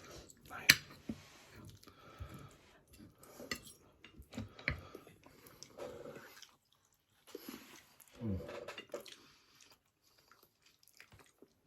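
A person chewing food close to the microphone, with crisp crunches and sharp clicks of biting, and a couple of short muffled vocal sounds in between.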